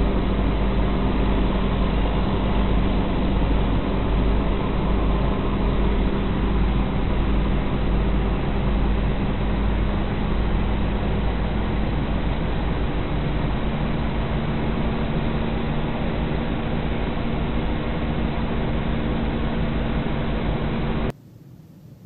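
Steady drone of engine and road noise heard from inside a moving vehicle. Near the end it cuts off abruptly to a much quieter hiss.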